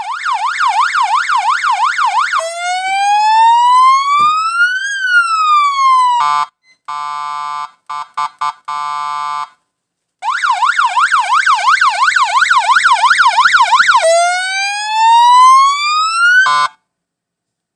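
Kazito 017 electronic siren-horn speaker sounding its three tones in turn: a fast warbling yelp, a slow wail that rises and falls once, then a run of steady horn blasts of varying length. After a short pause it goes back to the fast yelp and a rising wail, cutting off about a second before the end.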